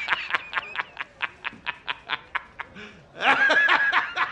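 A man laughing hard in rapid, even ha-ha-ha pulses, about five a second, breaking into a longer, higher laughing cry about three seconds in.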